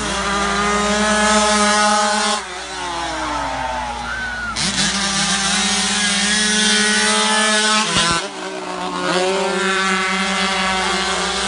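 Engines of 135cc racing motorcycles at high revs, held steady as the bikes go by. The note drops about two and a half seconds in, and again with a sharp break about eight seconds in, as the riders roll off for the corner, then picks up again.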